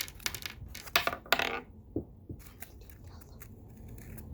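Small hard plastic toys being handled: a few clicks and knocks in the first couple of seconds, the most solid one about two seconds in.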